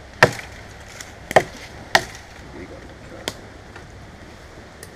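Knife chopping into wood: four sharp, unevenly spaced strikes, with a fainter one near the end, working a piece of wood for a spindle.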